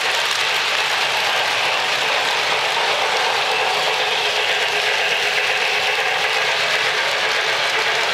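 O-gauge three-rail model trains running on Lionel Fastrack: a steady rolling clatter of metal wheels on the plastic-based track mixed with the whir of the locomotives' motor gears, with no change in level.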